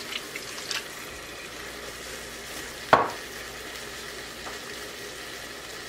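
Spiced chicken pieces sizzling in olive oil and smen in a pot on the stove, with half a glass of water just poured in. A few small clicks in the first second and a single sharp knock about three seconds in.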